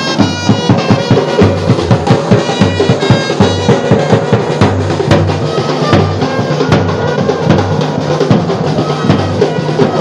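Band music with a steady drum beat of bass drum and snare, and horns playing over it.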